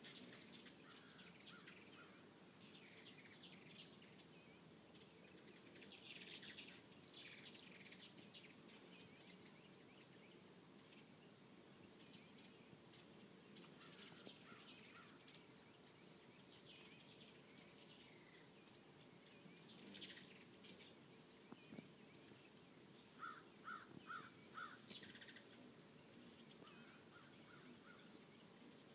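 Faint, high, quick chips and chatter of ruby-throated hummingbirds around the feeders, coming in scattered clusters. About three quarters of the way through there is a short run of four lower, evenly spaced bird notes.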